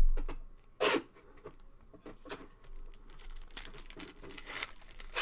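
Panini Revolution basketball card pack's wrapper being torn open and crinkled by hand. The crackles come thicker toward the end. A low thump at the very start is the loudest sound, and a short rustle follows about a second in.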